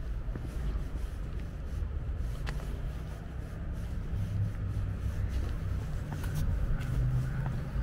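Steady low rumble of road traffic, growing a little louder near the end.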